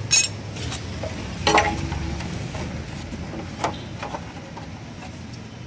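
Tools and chain parts clinking while a motorcycle's drive chain is being adjusted: a few sharp metallic clinks and knocks, the loudest near the start and about a second and a half in, with a low hum fading out in the first two seconds.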